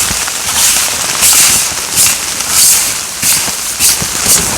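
Footsteps crunching through fresh snow at a steady walking pace, about one and a half crunches a second.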